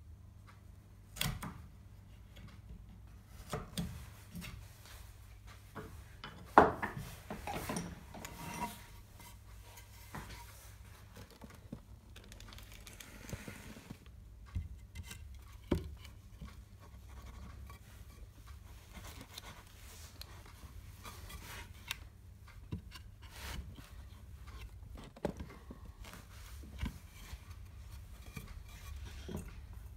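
Hand chisel paring a wooden tenon and the pieces being handled and fitted into a mortise: scattered light scrapes and knocks of wood and steel on wood, the sharpest knock about six and a half seconds in.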